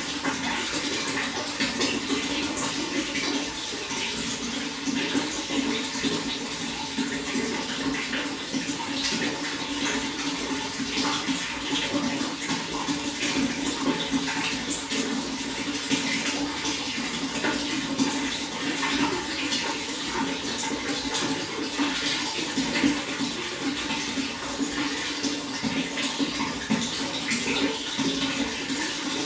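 Running water splashing and gurgling steadily, with a constant rush and many small splashes.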